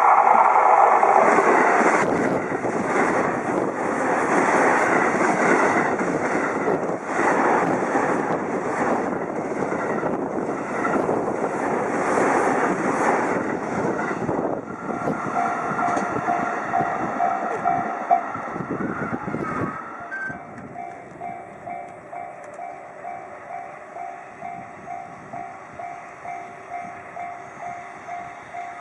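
A train passing close by, its wheels clattering over the rail joints, the noise stopping abruptly about twenty seconds in; a level-crossing warning bell rings throughout, coming clear as the train fades, at about two strokes a second.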